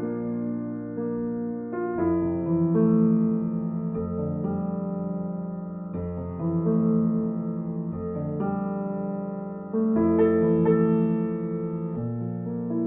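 Calm, slow instrumental piano music: sustained chords that change about every two seconds, with no beat.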